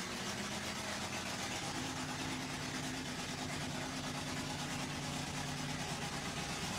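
Bigfoot 5 monster truck's engine running with a steady low note as the truck rolls slowly forward.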